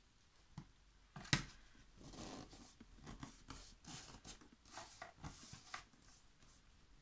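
Paper and thin cardboard being handled, pressed and smoothed by hand: a sharp tap just over a second in, then a run of short rustles and rubs as a paper strip is pressed along the cardboard.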